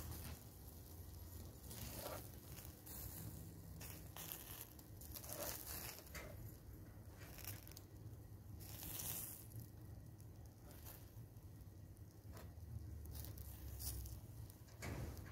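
Rolled meat kebabs sizzling on skewers over hot charcoal, with fat crackling and popping at irregular moments over a low steady hum.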